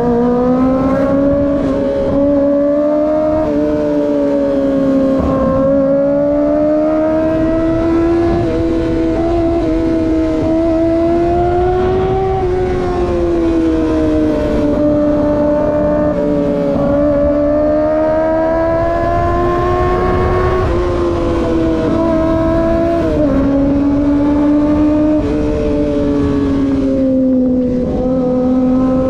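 Kawasaki ZX-25R's 249 cc inline-four engine running at high revs while riding, its high-pitched note rising and falling with the throttle and jumping abruptly in pitch a few times at gear changes.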